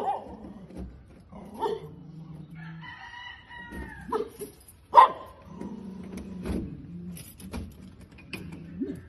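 A rooster crows once, a single arching call of about a second, around three seconds in; a sharp knock about five seconds in is the loudest sound.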